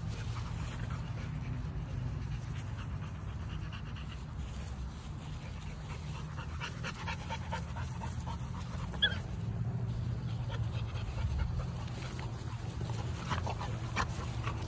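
Pit bull–type dogs and puppies panting as they wrestle and play, with a brief high whimper about nine seconds in, over a steady low rumble.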